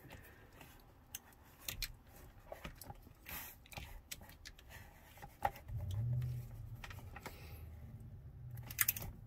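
Small clicks and scrapes of a flat screwdriver prying at the oil filter cap on a Rotax marine engine to pop it off. A low hum comes in about six seconds in.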